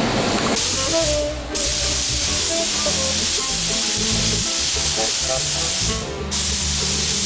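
Compressed-air spray gun hissing in long bursts, with a short release of the trigger about six seconds in, over background music.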